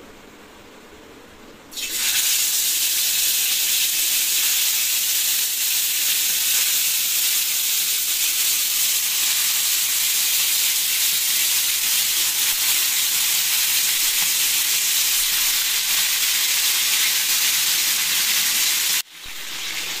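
Green-marinated chicken pieces frying in hot oil in a pan: a loud, steady sizzle that starts suddenly about two seconds in, after a quieter start, and breaks off sharply just before the end before carrying on more quietly.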